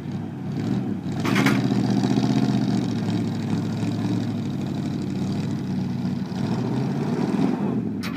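Engine revving up about a second in and held at high revs, easing off near the end.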